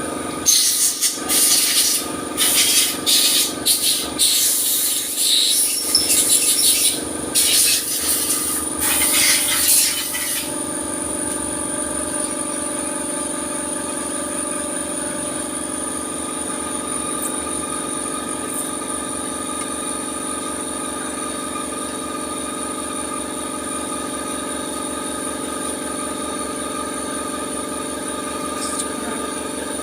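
Repeated hissing blasts of compressed air, like an air gun blowing through workshop parts, stopping about ten seconds in. After that a steady machine sound with a fine, even pulse runs on without change.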